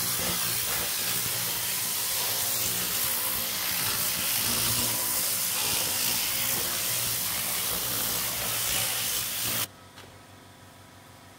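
Loud, steady hiss of a pressurised cleaning jet, cutting off abruptly near the end.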